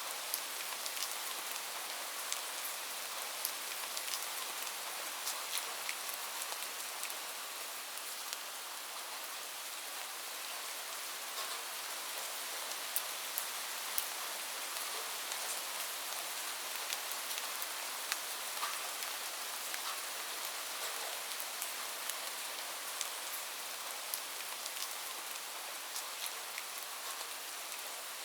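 Light rain falling steadily, a soft even hiss with scattered close drops ticking on a surface.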